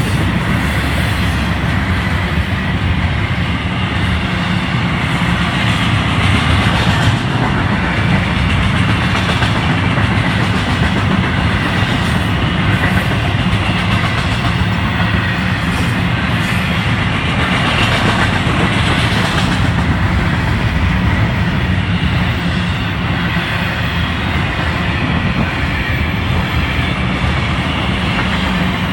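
Florida East Coast Railway intermodal freight cars (double-stack container well cars and trailer flatcars) rolling steadily past, a continuous loud rumble with wheels clacking over the rail joints.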